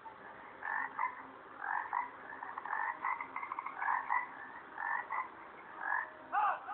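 Frog croaking: a series of short, rasping croaks, about one a second.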